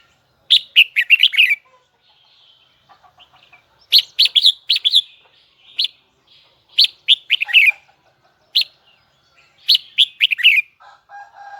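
Red-whiskered bulbul singing: repeated short phrases of quick, high, sharply gliding notes, with fainter chirps between the phrases.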